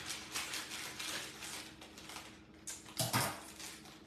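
Scissors snipping open the plastic inner bag of a yellow cake mix, with crinkling of the plastic. A duller knock comes about three seconds in.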